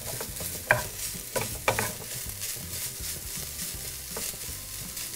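Diced chicken and onion sizzling in butter in a frying pan while a wooden spoon stirs and scrapes it, with a few sharp knocks of the spoon against the pan, mostly in the first two seconds.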